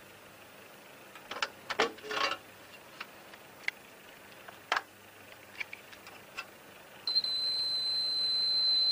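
Scattered metallic clicks and clinks as the fittings inside a street-lamp column's base compartment are handled. About seven seconds in, a steady, high-pitched electronic beep starts and holds, growing slightly louder.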